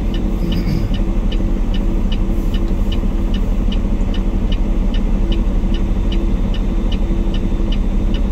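Peterbilt 389 semi truck's diesel engine idling steadily, with a light regular ticking about three times a second over it.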